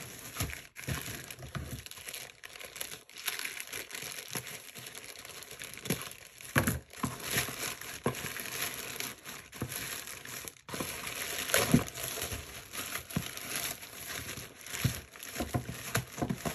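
Plastic poly mailer bag crinkling and rustling as it is handled and pulled open, with sharp crackles throughout, the loudest about seven and twelve seconds in.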